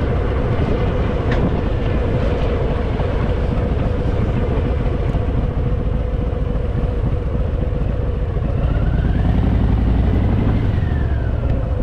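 Harley-Davidson Fat Boy's V-twin engine running steadily while riding, growing a little louder about nine seconds in.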